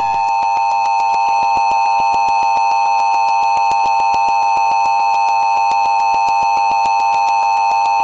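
Emergency Alert System attention signal: two steady sine tones (853 and 960 Hz) sounded together as one loud, unbroken alarm tone, marking the start of an emergency alert.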